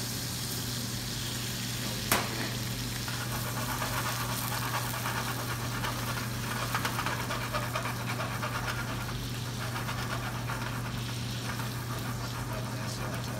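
Butter and Marsala sauce sizzling and bubbling around chicken and mushrooms in a skillet on a portable gas burner, crackling more busily in the middle stretch. One sharp click about two seconds in, over a steady low hum.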